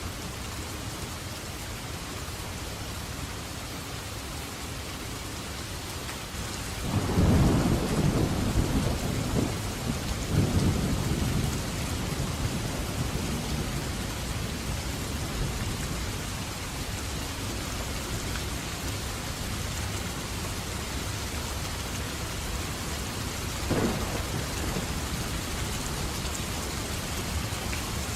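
Steady heavy rain falling, with a loud roll of thunder about a quarter of the way in that rumbles and swells again before fading, and a short sharper crack of thunder near the end.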